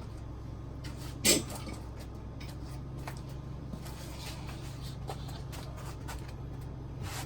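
Knocks from a large assembled piece being handled and set down onto its uprights: one sharp knock about a second in, another near the end, and light taps between, over a steady low hum.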